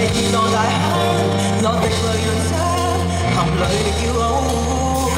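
A male singer singing a Cantonese pop love song live into a microphone, over band backing with a sustained bass line.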